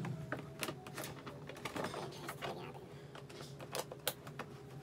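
Thin plastic panels of a folding shoebox clicking and tapping irregularly as they are handled and fitted together.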